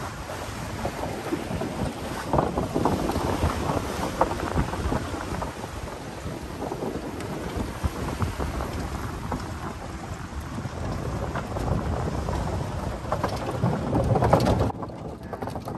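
Wind buffeting the microphone in a loud, irregular low rumble while riding in an open buggy along a wooden boardwalk; the rush drops off suddenly just before the end.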